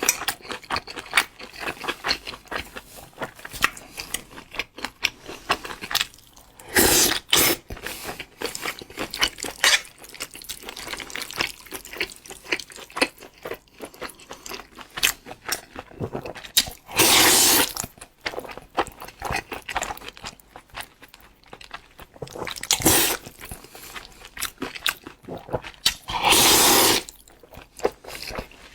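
Close-miked eating of spicy instant noodles: a steady run of small wet chewing and mouth clicks, broken four times by a louder slurp of noodles lasting about a second.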